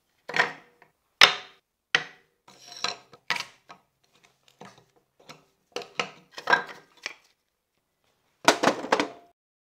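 Small pieces of weathered wood clattering as they are handled and set down on a hard tabletop, with sharp knocks from a hammer tapping on the wood. The knocks come singly and in short clusters, the loudest about a second in and again near the end.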